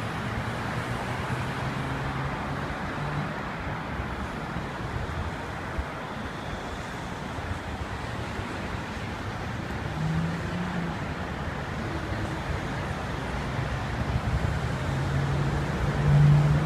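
City traffic noise from cars passing on a wide multi-lane road. The low engine hum of passing vehicles swells a few times and is loudest near the end.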